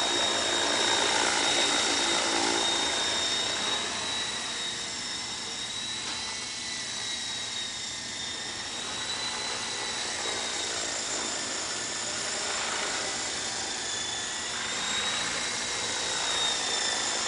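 Radio-controlled model helicopter in flight: a steady high-pitched whine from its motor and rotor drive over a rushing of the rotor blades. The pitch wavers slightly, and the sound grows louder near the end as the helicopter comes lower.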